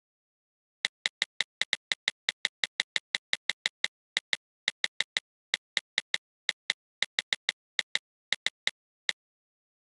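Rapid run of about forty identical short digital clicks, four or five a second with a few brief pauses. Each click is an undo tap in a drawing app, removing one brush stroke.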